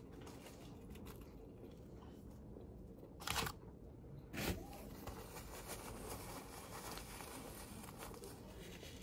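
Paper baking-cup liner crinkling and rustling as it is handled and folded up, with two short louder rustles about three and four and a half seconds in.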